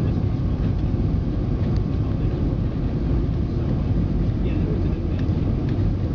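Steady, deep cabin noise inside an Airbus A320-214 on short final, heard from the rearmost row: its CFM56 engines and the airflow over the airframe.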